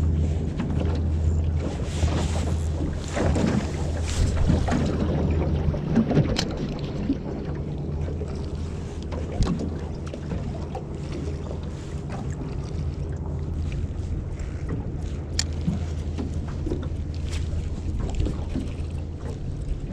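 A boat engine running as a steady low hum, with scattered sharp clicks and knocks around a small aluminium boat.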